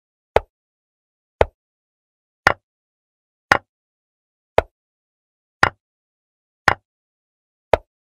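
Online chess board's move sound effects: a short, sharp wooden click as each move is played, about one a second, eight in all, with dead silence between. A couple of the clicks are doubled.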